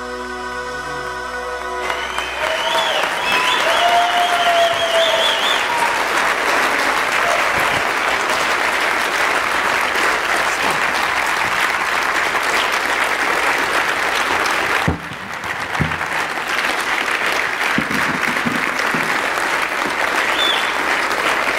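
The last held chord of the song's music ends about two seconds in, then a standing congregation applauds steadily, with a few voices calling out in the first seconds of the clapping.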